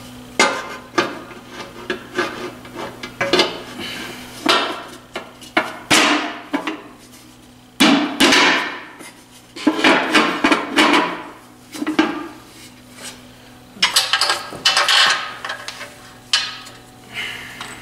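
Irregular hammer blows, a dozen or more, knocking a transmission bellhousing into place against a diesel engine. Each hit rings briefly, and some come in quick pairs.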